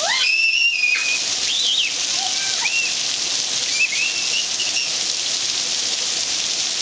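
Heavy rain pouring steadily onto pavement, with a few short, high-pitched squeals from children over it: the loudest right at the start, then fainter ones every second or so through the first half.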